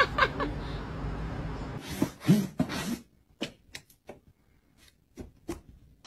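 For the first three seconds there is a steady background hiss, with a few short knocks and one brief animal call about two seconds in. After that it goes quiet except for a scattering of light, sharp taps and scratches as a cat paws at a cardboard pizza box lid.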